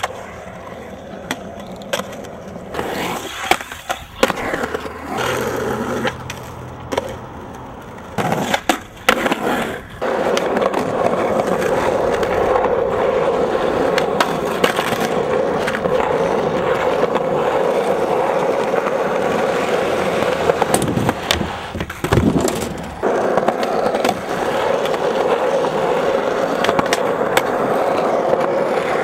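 Skateboard wheels rolling on concrete, with sharp clacks as the board pops and lands on tricks.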